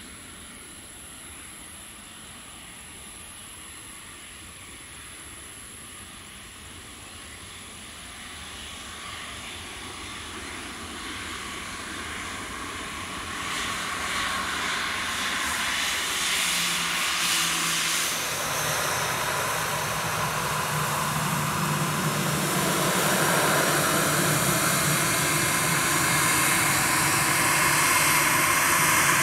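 Airbus A320-214 airliner's twin CFM56 jet engines running as it rolls out along the runway after landing. A steady rushing noise with a faint whine grows louder from about a quarter of the way in and is loudest near the end as the plane comes close.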